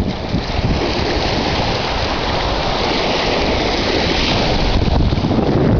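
Ocean surf washing in, with wind rumbling on the microphone; the hiss of the surf swells louder for a couple of seconds in the middle.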